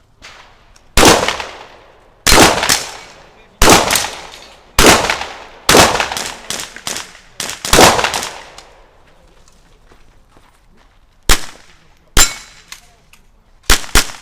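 A string of .22 LR rifle shots fired about once a second, each with a short ringing tail and fainter cracks in between, then a pause of a few seconds and four more shots near the end.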